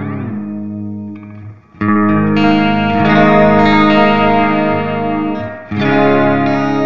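Clean electric guitar chords played through an Earthquaker Devices Space Spiral modulated delay, with the echoes bending up in pitch at the start as the delay-time knob is turned. One chord fades out and a new chord is struck about two seconds in, then another about a second before the end, with the repeats ringing on.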